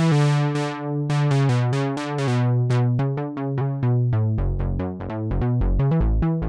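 Behringer 2600 analog synthesizer with all three oscillators sounding together, a pretty fat, bright tone. It plays a run of held notes, changing about twice a second, then from about four seconds in shorter, quicker notes over a deep low pulse.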